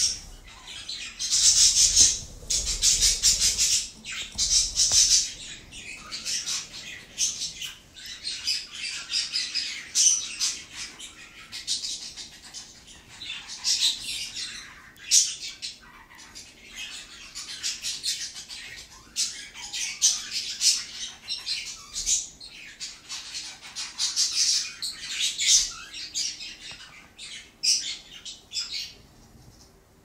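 A flock of budgerigars chattering and squawking in continual, irregular spells, loudest in the first few seconds and falling away just before the end.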